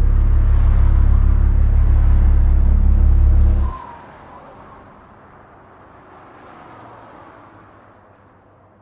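A loud, steady low motor drone that cuts off abruptly just under four seconds in, leaving only faint background noise.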